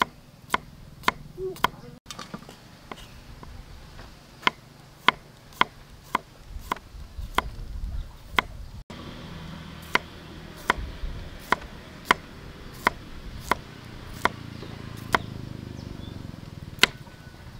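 Cleaver slicing garlic cloves on a wooden chopping block: a series of sharp knocks of the blade on the board, about one to two a second and unevenly spaced.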